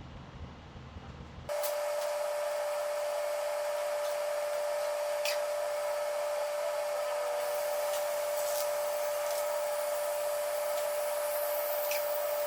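Steady hissing rush with a steady whistling tone, starting suddenly about a second and a half in: an 18.4R46 tractor tire being filled through its valve stem.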